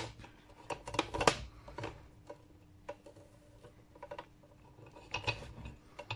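Handling noise from an electrical cable being pulled and routed through an open street-light luminaire housing: scattered clicks and knocks as the cable and hands rub and bump against the housing and its metal gear plate, loudest about a second in and again near five seconds. A faint steady hum sits underneath.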